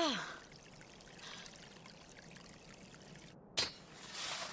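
Water running from a pipe, a faint steady pour. It opens with a short tone falling steeply in pitch, and near the end a sharp click is followed by a brief swell of hiss.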